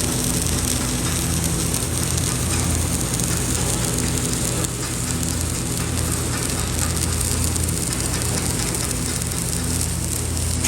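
Electric arc welding on thin steel pipe: a steady crackling sizzle of the arc, with a low hum that wavers underneath.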